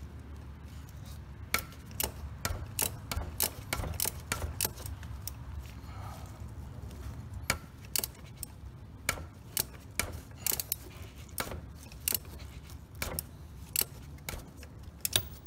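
3/8-inch-drive ratchet clicking in short irregular runs as it is worked back and forth, loosening the cartridge oil filter housing cap of a 3.6L Pentastar V6.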